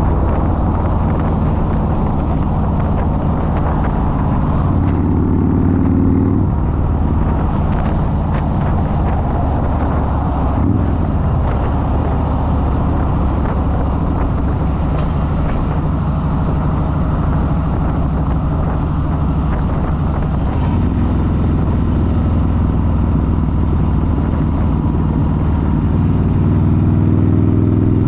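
Harley-Davidson motorcycle engine running steadily, its revs rising briefly about five seconds in and again near the end.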